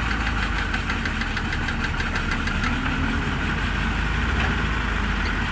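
Diesel engine running steadily with an even, rhythmic clatter over a low rumble.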